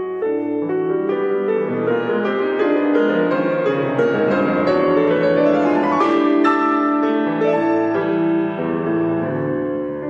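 Piano accompaniment playing a slow introduction in sustained chords, swelling to its loudest about six seconds in.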